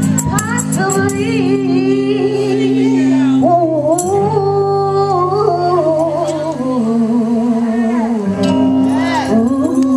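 A singer's voice amplified through a PA, singing long held notes that slide and bend, over a backing track of sustained chords that change every few seconds.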